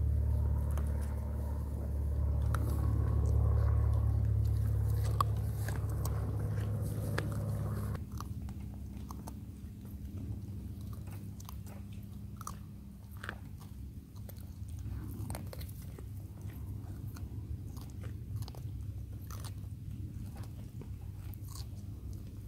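Goats crunching and chewing carrot pieces taken from a hand: a run of small, crisp crunches. A loud, steady low hum lies under the first third and cuts off abruptly.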